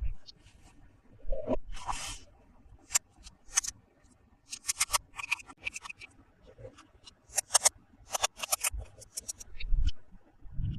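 Hands handling toy packaging and plastic toy parts: a run of sharp clicks and taps, some in quick clusters, with a short crinkling rustle about two seconds in.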